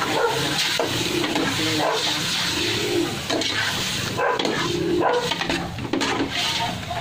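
Metal spatula stirring and scraping chicken pieces in a large aluminum pot. Dogs bark and yelp repeatedly in the background throughout.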